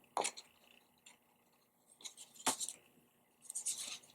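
A paper card being handled on a tabletop: a few short, scratchy rustles and light taps, with quiet gaps between them.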